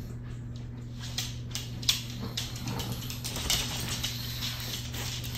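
Dog claws clicking and tapping irregularly on a hardwood floor as the dogs move about, over a low steady hum.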